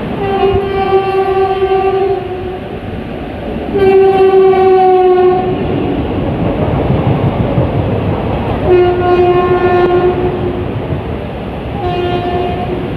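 Suburban EMU local train running past close by and sounding its horn four times, the second blast the loudest, over the steady rush and rumble of the passing coaches.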